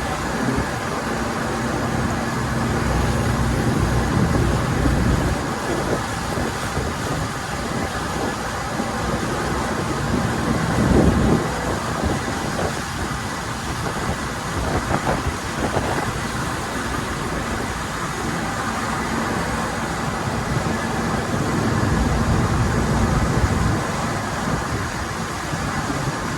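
Sightseeing tour boat under way: a steady engine drone mixed with the rush of wind and water.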